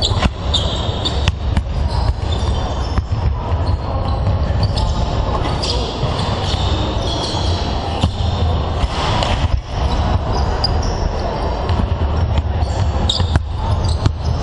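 Several basketballs bouncing on a wooden court during a warm-up, irregular overlapping thuds echoing in a large sports hall.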